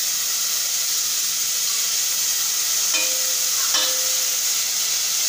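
Grated onion and garlic sizzling in oil in a stainless steel pot, a steady frying hiss that carries on with the burner switched off. A spoon stirs, with a couple of light knocks on the pot about three seconds in.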